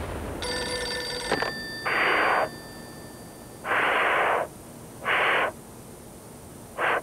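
Telephone sounds during a call: a short ringing tone about half a second in, then four separate bursts of hiss over the line, each about half a second long, the last near the end.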